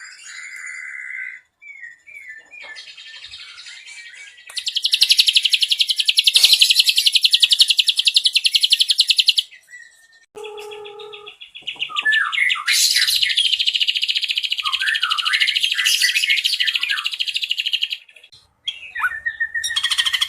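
Ashy drongo singing: short whistled and gliding notes, then two long, very fast, high trills, each lasting about five seconds, with a few whistles and lower notes between them. The trills are the drongo's cililin-style 'nembak' bursts.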